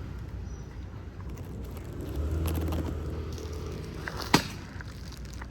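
Outdoor low rumble that swells for about a second, then one sharp click.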